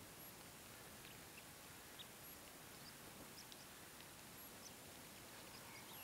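Near silence: faint outdoor hiss with a few faint, short, high chirps or ticks, and a faint high tone repeating about every two seconds.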